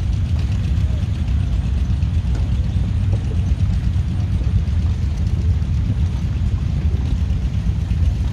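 An engine idling with a steady low rumble.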